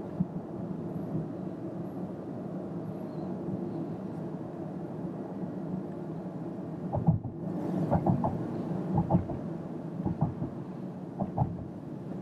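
Inside the cabin of a Toyota Corolla 125h hybrid at road speed: steady tyre and running noise with a low hum. From about seven seconds in, irregular thumps and short knocks come through over it.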